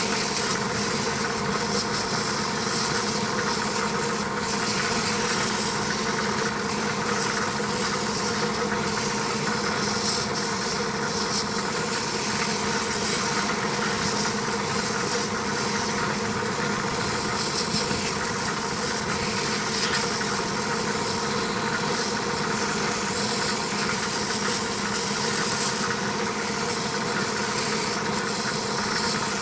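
Air compressor running steadily, a motor hum with an even hiss over it, while it charges with air.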